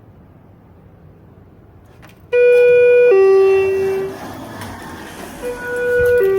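Schindler elevator chime sounding a two-note falling 'ding-dong' twice, the first about two seconds in and the second near the end, each lower note held about a second.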